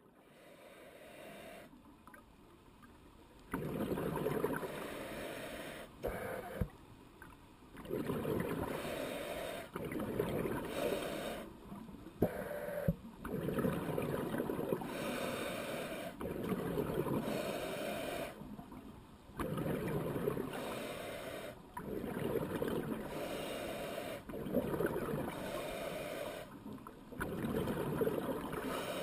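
Scuba diver breathing through a regulator, heard underwater: a rushing burst of exhaled bubbles roughly every three seconds, with short quieter gaps between, and a few sharp knocks.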